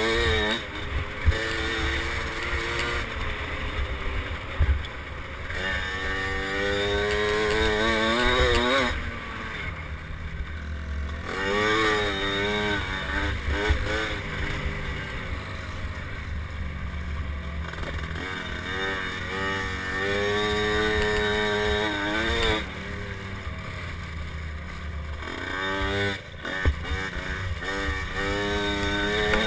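KTM 50SX's small two-stroke single-cylinder engine revving up and dropping back again and again as the mini dirt bike is ridden, its pitch climbing steeply in each run, with a low rumble and occasional knocks underneath.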